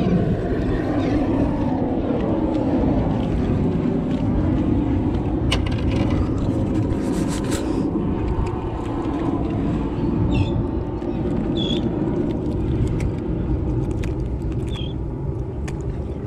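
Steady low rumble of wind buffeting a body-worn camera's microphone. A cluster of knocks comes around six to eight seconds in, and a few short high chirps sound in the second half.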